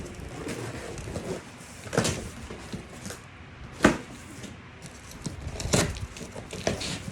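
Cardboard box and packaging being opened and handled: rustling with several sharp knocks and taps, the loudest about halfway through.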